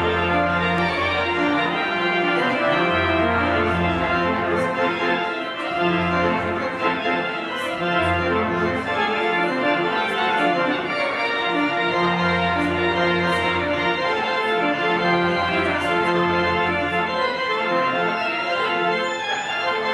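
Rebuilt church organ playing sustained full chords over a low pedal bass that moves to a new note every second or two.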